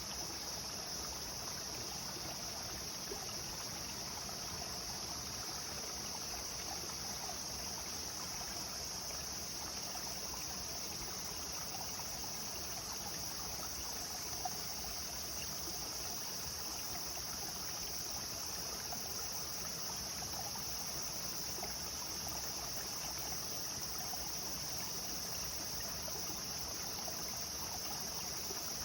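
Clear stream flowing and babbling steadily over stones, with a constant high-pitched drone of insects over it.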